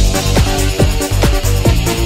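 Electronic dance music with a steady kick drum a little over twice a second over a sustained bass line and synth chords.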